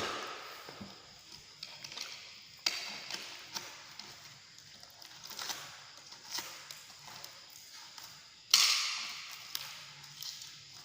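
A delivery package being worked open by hand: sudden sharp rips and crackles of packaging, three big ones with the loudest near the end, and small clicks and rustling between them.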